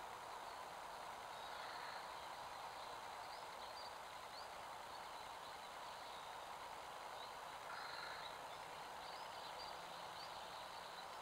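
Steady hiss of a trail camera's microphone, with faint short bird chirps scattered through it.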